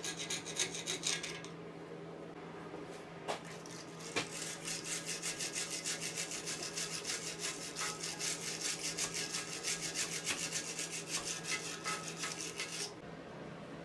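A metal tool scraping debris and lime scale out of the water jacket of an AC 2-litre aluminium engine block. A few strokes come first, then after a short lull a long run of quick, even scraping strokes that stops near the end.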